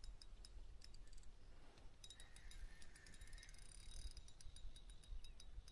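Near silence with faint, scattered, irregular clicks.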